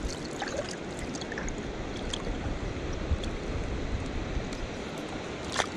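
River current flowing steadily around a wading angler, an even rushing water sound. A few small splashes and clicks come through it, one right at the start as a released trout drops back into the water.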